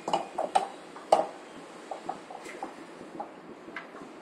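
Metal cups clinking and knocking against each other and against the steel fixture of a hot press welding machine as they are loaded. A quick run of knocks comes in the first second, the loudest just over a second in, then lighter taps.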